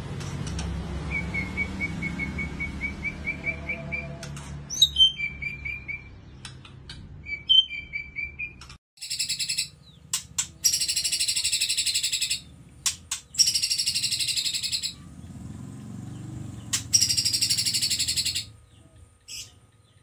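White-rumped shama singing: first a quick run of repeated notes and some whistles, then four loud, drawn-out bursts of rapid-fire notes, each one to two seconds long. These bursts are the hard 'tembakan' shots and rolls that songbird-contest judges favour.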